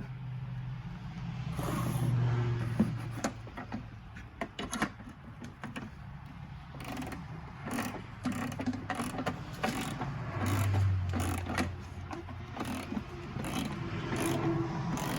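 Irregular clicks and rattles of a small wrench and loose nuts being worked on the plastic studs of a tail light assembly, over a low hum.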